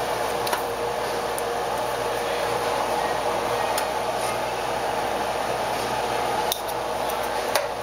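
Steady rushing noise with a faint held tone. Over it, a knife and carving fork click lightly a few times against a wooden cutting board and a metal broiler pan, most sharply twice near the end.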